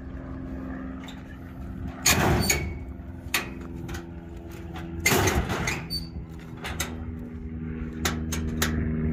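Metal clunks and clicks from the latch and hood of a 1957 Chevrolet 210 sedan as it is worked open, with two loud clunks about two and five seconds in and lighter clicks between. A steady low hum runs underneath.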